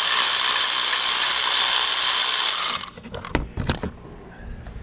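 Power ratchet running steadily as it spins off the 13 mm nut on the starter's lower bolt, stopping about three seconds in. A few sharp clicks and knocks follow as the tool and nut are handled.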